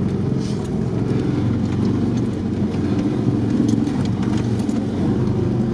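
The air-cooled V4 engine of a ZAZ-968M Zaporozhets running steadily under load on a dirt track, heard from inside the cabin, with scattered light knocks and rattles from the body.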